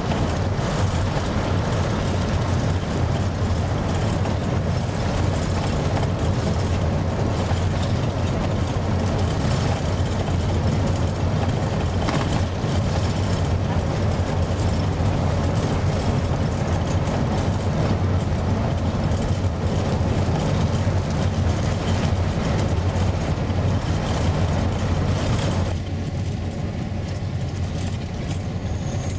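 Engine and road noise of a moving vehicle heard from inside the cab, a steady low drone that eases slightly near the end.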